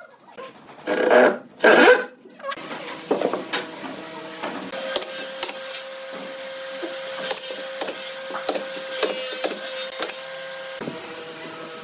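Woodworking sounds: two loud knocks near the start, then a small motor running steadily for several seconds with scattered clicks and knocks of wood being handled, and the motor stopping near the end.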